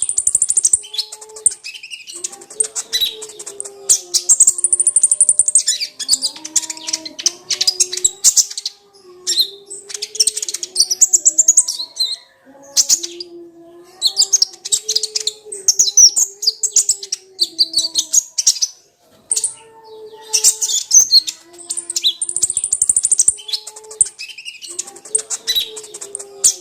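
Kolibri ninja (konin) sunbird singing: rapid, high-pitched twittering in repeated bursts of a second or two with short breaks, over a fainter, lower wavering tone.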